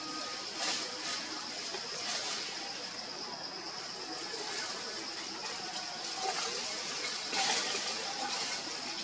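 Forest ambience: a steady high-pitched insect drone over an even hiss, with a few short rustling swells, one about a second in and a louder one near the end.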